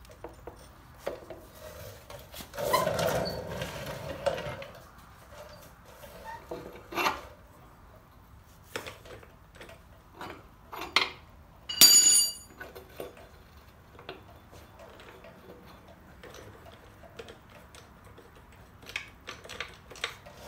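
Scattered metal clinks, knocks and scraping from parts and tools as a Harley-Davidson Road King rear wheel is worked loose from its axle and brake caliper, with a longer scrape near the start. About twelve seconds in, a single loud ringing clank of a metal part.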